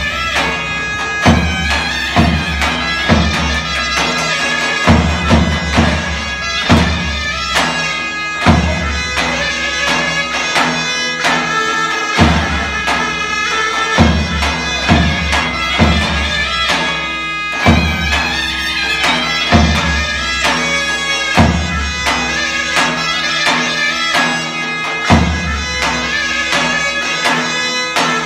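Zurnas playing a slow zeybek tune over a held drone from the second (dem) zurna, with a davul striking heavy bass beats roughly every two seconds, now and then in quick clusters.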